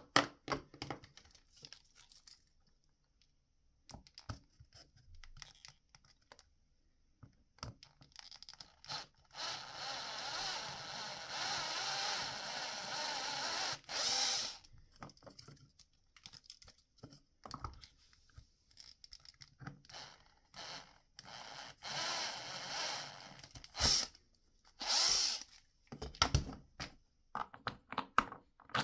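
Cordless drill with a cone-shaped step bit boring through PVC end caps, in two runs of a few seconds each, the first about a third of the way in and the second about two-thirds in, the cutting noise topped by a high steady motor whine. Short clicks and knocks of the plastic parts being handled and set down between the runs.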